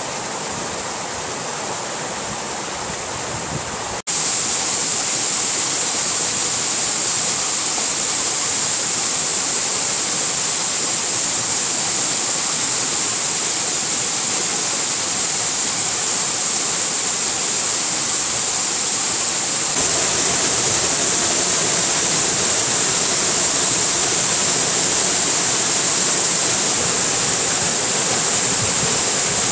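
Waterfall: a steady rush of falling water. About four seconds in it breaks off for an instant and comes back louder, and it steps up slightly again about twenty seconds in.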